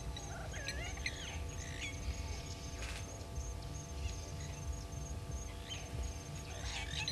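Squeaky, warbling bird calls in two bouts, just after the start and again near the end. Underneath are a steady low hum and rumble and a faint, regular high ticking.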